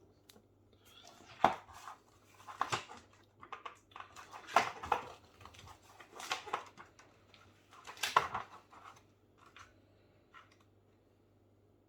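Snack packaging being handled, with irregular bursts of crinkling and rustling.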